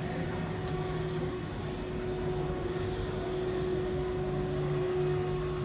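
Steady mechanical drone in a large hall: a constant humming tone over a low rumble, unchanging throughout.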